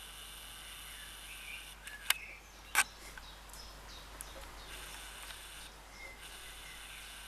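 A small bird giving a few faint, short chirps over a steady background hum and hiss. Two sharp clicks, one just after two seconds and another just before three, are the loudest sounds.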